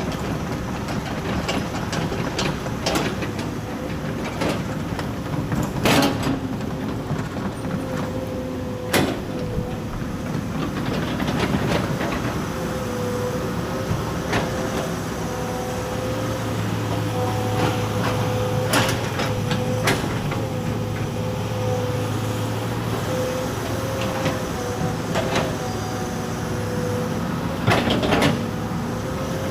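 Excavator engine running with a steady whine, with heavy knocks and clunks as logs are moved. The loudest knocks come about six seconds in and near the end.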